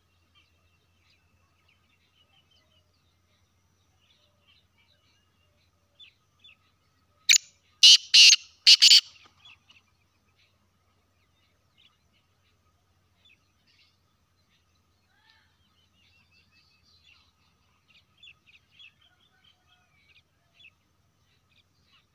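Black francolin calling once: a loud, harsh phrase of four notes about seven seconds in. Faint twittering of small birds runs through the rest.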